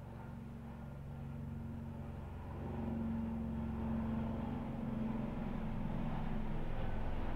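A steady low mechanical hum made of several held tones, growing louder about three seconds in.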